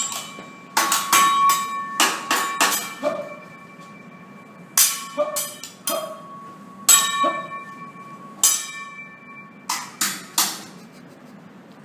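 Metal teppanyaki utensils clanging together and against the steel griddle in a juggling trick routine: groups of quick sharp strikes, each leaving a ringing metallic note.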